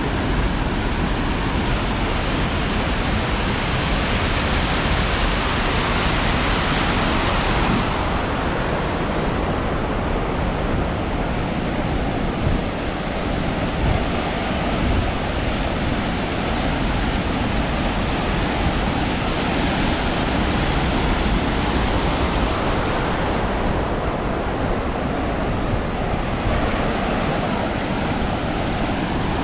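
Fast mountain-river water rushing through a concrete channel and tumbling over low stepped weirs as whitewater: a loud, steady rushing noise, swelling a little a few seconds in and again near the end.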